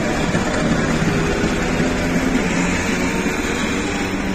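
ČSD class 751 'Bardotka' diesel locomotive running with a steady low drone as it hauls passenger coaches slowly past. The engine gives way to the rumble of the coaches rolling by.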